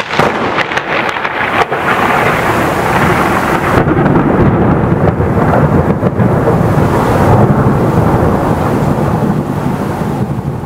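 A close thunderclap over rain: a sudden crackling crack in the first second or two, then a long rolling rumble that builds to its loudest midway and slowly fades near the end.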